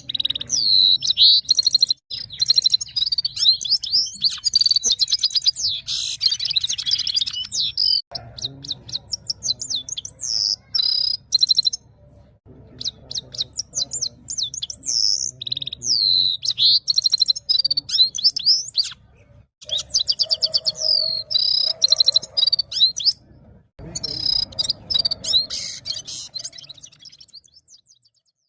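A goldfinch singing long, fast twittering phrases of rapid trills and high chirps in the manner of a red-fronted serin's song, with brief pauses between phrases.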